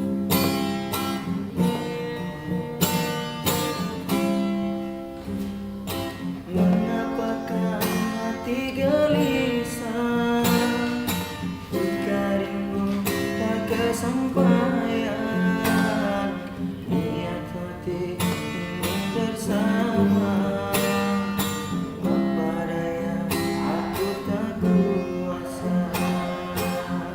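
Acoustic guitar strumming and picking chords with a steady beat, as music for a song.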